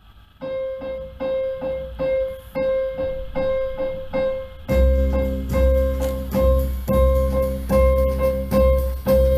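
Recorded music played over Lipinski Sound L707 Monitor loudspeakers from a CD: a keyboard repeats one note about twice a second, and deep bass and drums come in around the middle.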